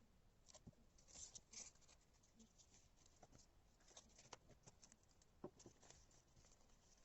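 Faint crackly rustling and light taps of hands winding washi tape and handling paper, in scattered short bursts.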